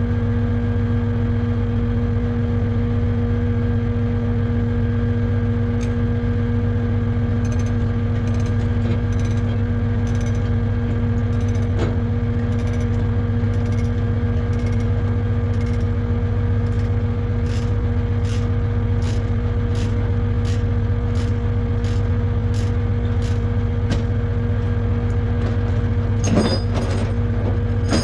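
Diesel engine of a tri-axle rollback truck idling steadily. From about a quarter of the way in, an even light ticking runs at about one and a half ticks a second, and there are two louder knocks near the end.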